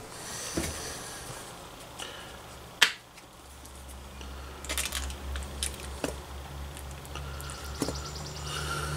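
Small handling noises: scattered clicks and taps, one sharp click about three seconds in, as a plastic squeeze bottle of Dijon mustard is squeezed onto raw corned beef briskets. A low steady hum comes in about three seconds in.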